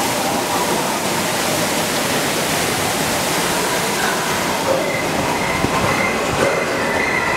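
Steady rush of falling and splashing water from an indoor waterfall beside the log flume channel. A thin, steady high tone joins about five seconds in.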